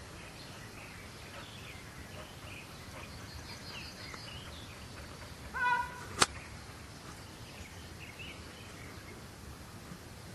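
Birds chirping over a steady outdoor background. About five and a half seconds in there is one brief shrill call, and half a second later a single sharp crack, the loudest sound here.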